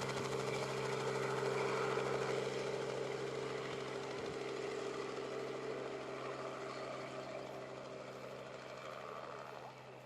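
Helicopter flying away, its steady engine and rotor hum fading gradually until it is faint near the end.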